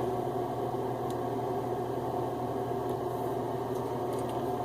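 Steady hum of a running appliance, with a few faint ticks.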